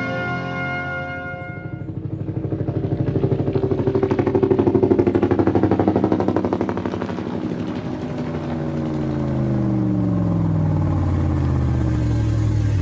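An engine running with a fast pulsing beat, its pitch falling in the second half; sustained musical tones fade out at the start.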